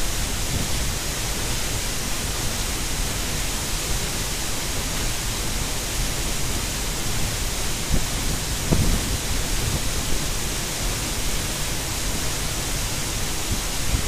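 Steady, unbroken rush of a waterfall's falling water, with a couple of brief low bumps a little past halfway.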